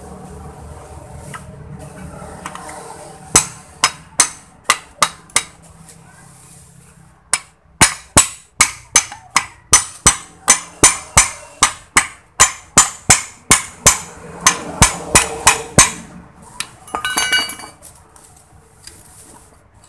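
Hammer tapping the metal end cover of an electric motor to seat it onto the housing: sharp metallic taps, six in quick succession about three seconds in, then a steady run of about three taps a second from about eight to sixteen seconds.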